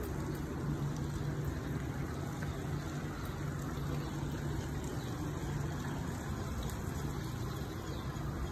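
Steady splashing of a tiered plaza fountain.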